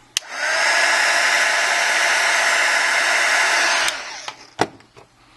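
Hot-air blower switched on with a click and blowing steadily for about three and a half seconds before it is switched off, heating the repair to soften the adhesive so a lifting part stays down. A couple of light clicks follow.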